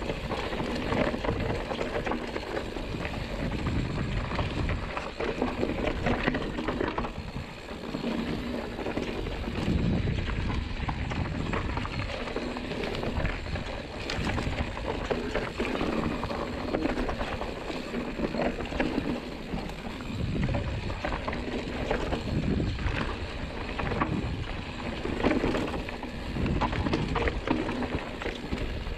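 Mountain bike descending a loose, gravelly dirt trail: tyres crunching over fine gravel while the bike clatters and rattles irregularly over bumps, over a constant low rumble.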